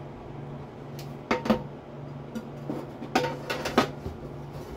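Metal pots and utensils clinking and knocking on a stovetop: two ringing clinks about a second in, then a cluster of three more a couple of seconds later, over a steady low hum.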